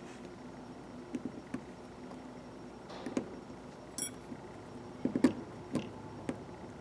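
Light metallic clicks and taps from small 1/4-inch ratchet parts being handled while the retaining clip is fitted, with one short high ping about four seconds in.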